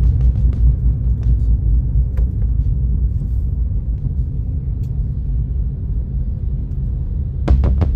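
Steady low rumble of a car driving along the road, with a few scattered ticks in the first couple of seconds. Music with drums comes in just before the end.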